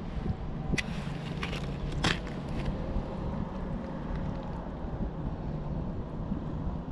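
Wind buffeting the microphone, a steady low rumble, with a few sharp clicks and crackles in the first three seconds.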